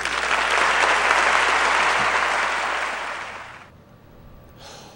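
Audience applauding, fading and then cutting off about three and a half seconds in.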